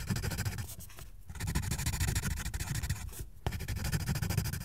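Pencil scratching and scribbling on paper in three quick spells with two brief pauses between them.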